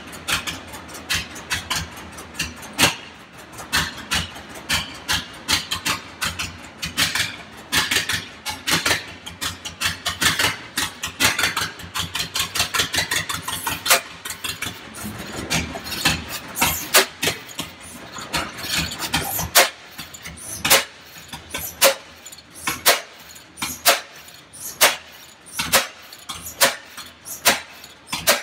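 Antique flywheel engine firing, each stroke a sharp exhaust pop over other old engines running. The pops come several a second at first. From about two-thirds of the way through they settle to a regular single pop about once a second.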